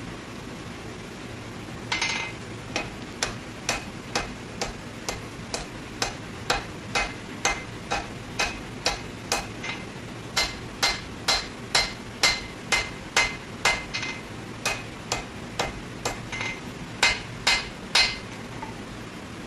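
Hammer blows on metal while forging a blade, struck steadily about twice a second, each blow with a short ring. The blows start about two seconds in, falter briefly a couple of times, and stop near the end.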